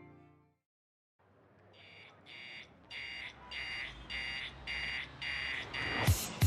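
Electronic alarm beeping about twice a second after a brief silence. Near the end a heavy drum beat comes in with it.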